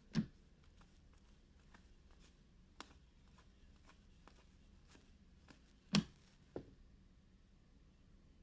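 Faint handling of trading cards: scattered light clicks and rustles as cards are flipped through, with a louder soft knock just after the start and another about six seconds in.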